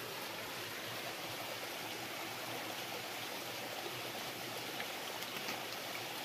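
Steady flowing water of a stream, with a few faint ticks late on.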